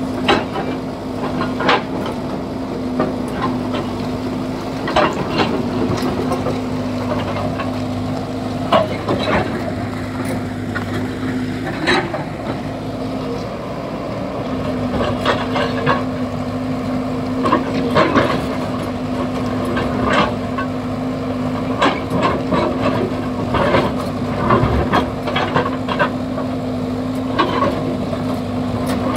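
Excavator's diesel engine running steadily while digging into a hillside, with frequent sharp knocks and scrapes of the work.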